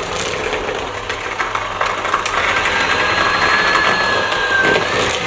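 Electric mixer running steadily, beating molasses into creamed butter, sugar and egg for gingerbread dough. A thin, steady whine joins about halfway through.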